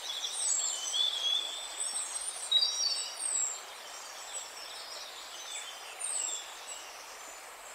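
Several birds calling: short high whistled notes and quick falling sweeps, busiest in the first few seconds, with another call about six seconds in, over a steady background hiss.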